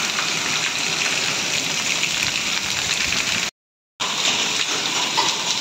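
Heavy downpour of rain and hail as a steady, dense hiss, with water running off the eaves and splashing on concrete. The sound cuts out completely for about half a second a little past halfway, then resumes.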